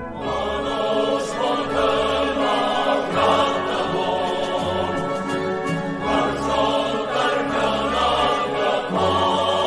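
Choral music: a sustained choir singing over low orchestral bass notes that change about every second or two.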